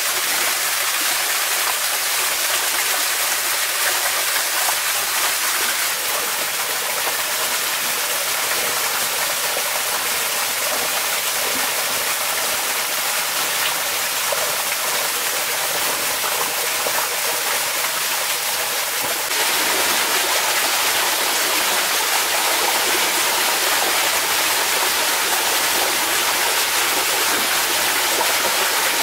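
Small waterfall and stream rushing steadily. About two-thirds of the way through the rush shifts abruptly, becoming slightly louder and fuller.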